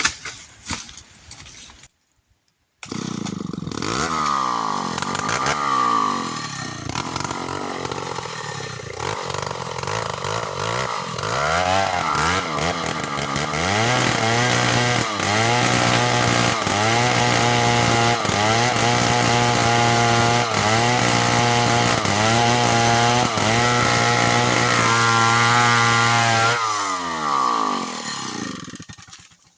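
Two-stroke chainsaw cutting through a mango trunk. For the first ten seconds or so it revs up and down, then it holds a steady high note under load with a slight dip in pitch about once a second, before dropping off near the end.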